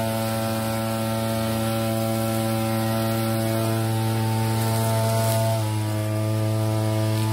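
Petrol backpack brush cutter running at full throttle while cutting grass, a steady high-pitched engine whine. The pitch dips slightly about five and a half seconds in and begins to fall as the throttle eases at the very end.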